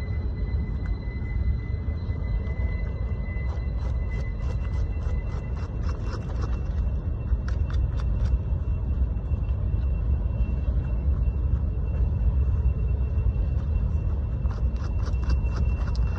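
Chickens dust bathing in loose dirt: clusters of short scratchy rustles as they flick and shuffle soil through their feathers, over a steady low rumble.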